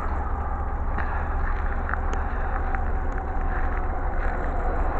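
Coal gondola cars of a Canadian Pacific freight train rolling past: a steady rumble of steel wheels on rail, with occasional clicks and a brief squeal about two seconds in.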